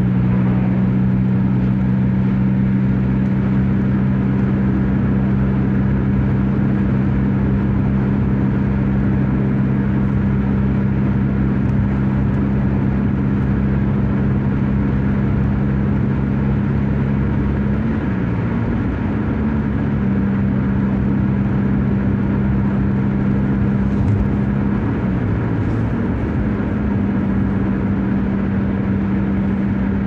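Steady engine and road drone heard from inside a car cruising at highway speed. The low hum wavers briefly in pitch a little over halfway through and again a few seconds later, then settles.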